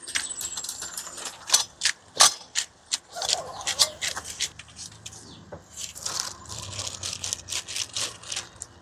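Irregular sharp clicks and crinkles of plastic food packaging and utensils being handled at a camp stove. The clicks come quickest, several a second, near the end.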